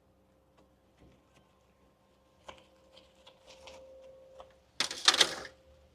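Hands rummaging through compost for potatoes: small clicks and rustles, then a louder rustling scrape lasting under a second, near the end.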